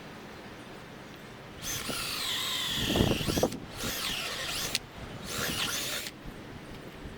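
Power drill boring holes into a wooden beam, running in three bursts: a long first run with its whine bending in pitch under load, then two shorter runs.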